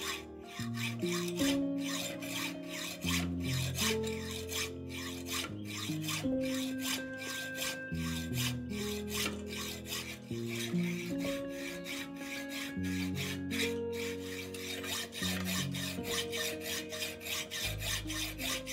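Hacksaw cutting through a steel bar in regular, rapid back-and-forth strokes, with background music.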